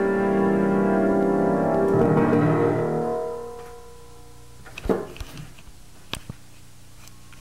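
Piano music ending on a chord that rings out and fades away about halfway through, followed by a couple of faint clicks.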